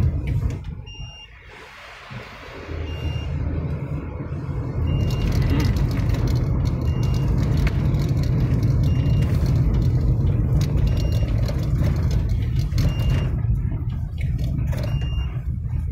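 Car cabin noise while driving on a wet road: a steady low rumble of engine and tyres that swells about two and a half seconds in and then holds. A short, high electronic beep repeats about every two seconds.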